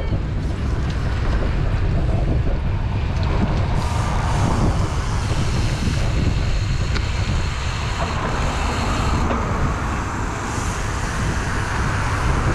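Wind buffeting the microphone of a camera riding on a moving road bike: a steady low rumble, with road traffic noise underneath.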